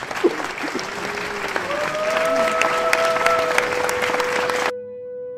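Crowd applauding and cheering, with a few held cheering voices over the clapping, cutting off suddenly near the end to leave a single held musical note.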